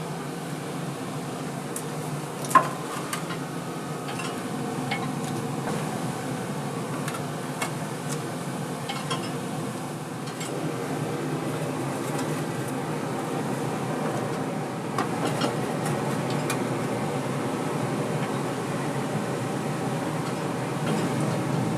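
Kitchen work over a steady hum: light clinks and taps of utensils or dishes, with one sharper clink about two and a half seconds in.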